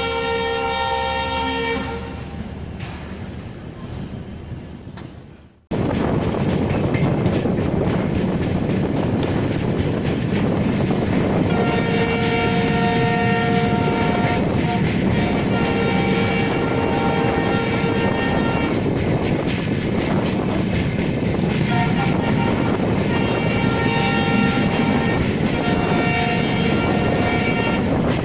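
Locomotive horn sounding at the start, then, after a sudden cut, the steady running rumble of a moving passenger train. Over the rumble the horn sounds four long blasts, each a few seconds long.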